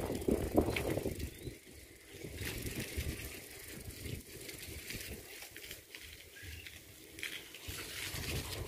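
Quiet outdoor ambience: a rumble of wind on the microphone in the first second, then faint rattling and ticking over a light hiss.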